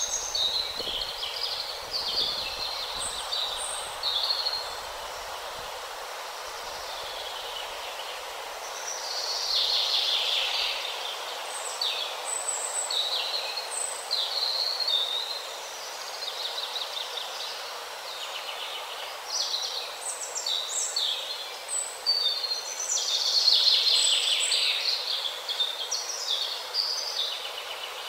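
Small birds chirping and twittering in short clustered phrases over a steady background hiss.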